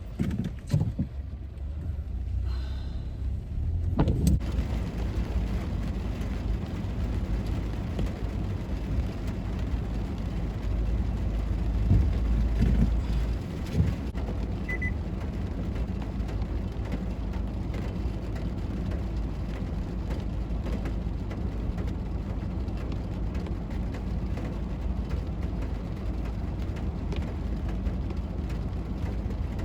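Steady low rumble of a car with rain falling, with a single knock about four seconds in.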